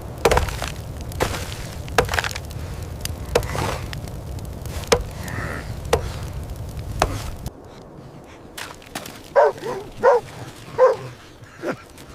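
Repeated chopping strikes, about eight over seven seconds, over a steady low rumble. After the rumble cuts off, a dog barks three times.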